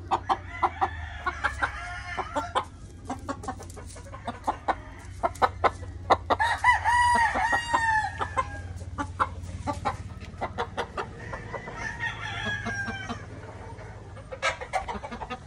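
Caged roosters crowing three times, the loudest crow about six and a half seconds in and another near twelve seconds, amid many short sharp clicks, over a low steady hum.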